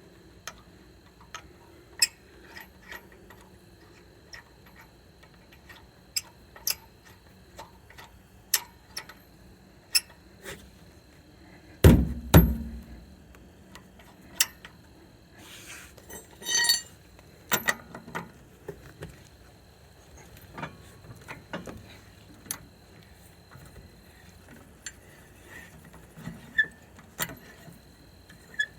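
Metal clinks and clicks of a tire iron fitting onto and turning lug nuts as they are snugged down, with a loud double thump about twelve seconds in and a quick run of rattling clicks a few seconds later.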